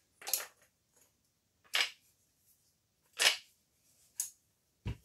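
Sharp metal clicks and knocks as a Howa barrelled action is seated into an aluminium MDT Oryx chassis, four separate clicks about a second and a half apart, then a duller thump near the end.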